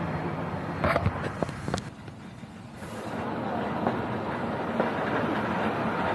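Steady engine drone of fire engines running at the scene. A few sharp knocks and rattles come about a second in, and the drone dips briefly just after.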